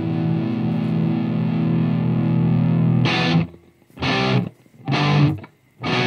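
Background music: one chord held for about three seconds, then three short chords about a second apart with brief silences between.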